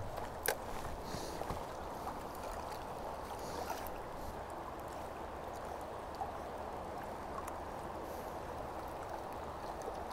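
Steady rush of a high, rain-swollen river running over gravel, with rain falling. There is a single click about half a second in.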